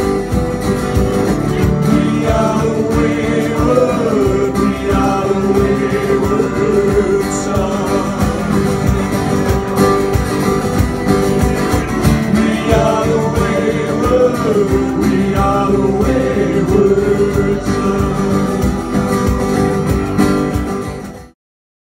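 Live country-style band: strummed acoustic guitar and electric bass with a man singing. The music cuts off suddenly near the end.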